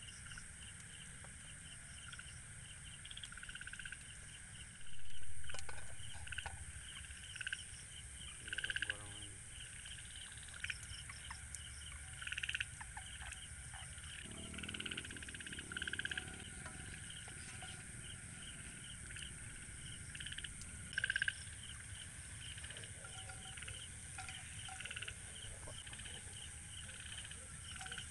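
A night chorus of frogs calling in repeated pulsed bursts over a steady trill of crickets and insects, with a few louder calls standing out. A short, louder noise comes about five seconds in.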